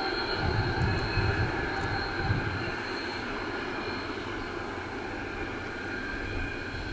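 ÖBB class 2143 diesel-hydraulic locomotive's diesel engine working steadily under load as it hauls a passenger train: a low, pulsing drone.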